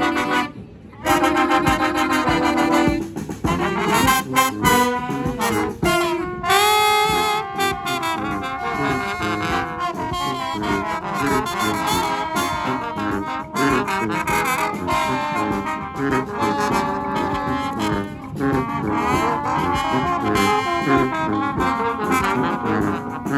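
A street brass band playing live, horns together in full ensemble. The band drops out briefly about half a second in, holds a chord, then plays on.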